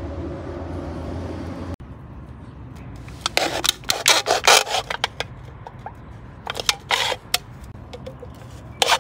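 A tool scraping wood in quick, repeated strokes: a burst about three seconds in, another near seven seconds, and steady scraping again at the very end. Before that, a steady hiss with a low hum cuts off suddenly about two seconds in.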